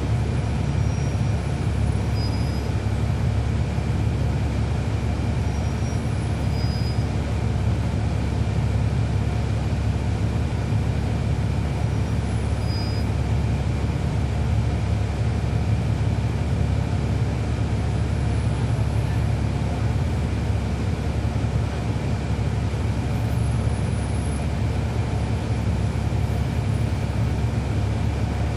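Cummins ISL9 inline-six diesel of a NABI 40-SFW transit bus running steadily, heard from inside the bus. It is a constant low drone with no clear revving or shifts.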